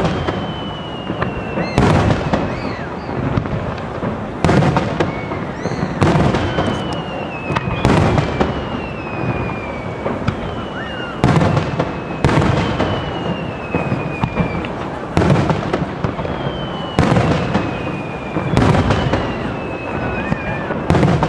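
Aerial firework shells bursting in a steady series of sharp bangs, about a dozen, one to three seconds apart, each trailing off in a rolling echo. After several of the bangs comes a thin whistle that falls slowly in pitch.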